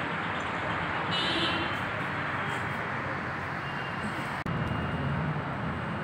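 Steady street traffic noise, an even rushing hum, briefly cut off about four and a half seconds in.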